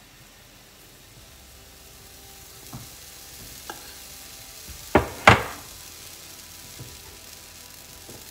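Pancake batter sizzling on a hot, ungreased stovetop griddle plate, the hiss building steadily after the batter is poured. A few light knocks and two sharp clacks about five seconds in come from utensils being handled.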